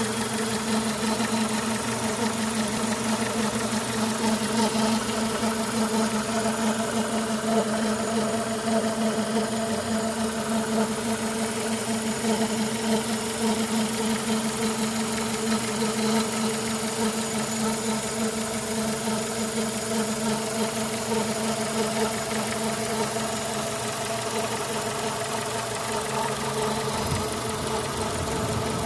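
Renault K4M 1.6-litre 16-valve four-cylinder petrol engine idling steadily when warm, with the grinding, squeaking and rustling noise that shows up once the engine is warmed up.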